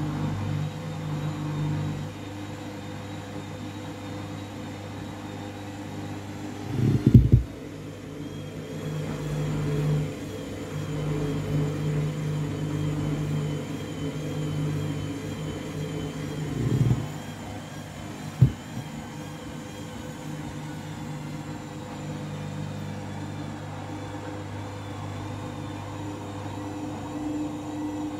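Candy washing machine's motor turning the drum with a steady low hum as it tries to spin a full load of towels that is slightly out of balance. Two heavy thumps come about seven and seventeen seconds in, with a sharp knock shortly after the second.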